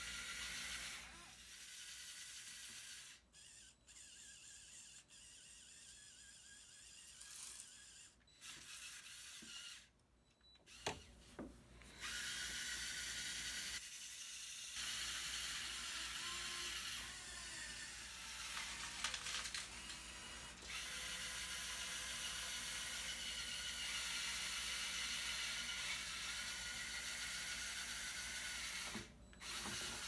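Lego Technic skid steer's small motors and plastic gears whirring as it drives and works its bucket, stopping and starting several times, with a few sharp clicks of plastic bricks.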